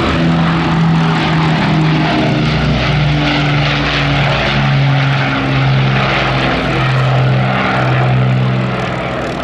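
Merlin-engined Second World War propeller aircraft flying past, a loud engine drone with a rushing noise, its pitch drifting lower over several seconds.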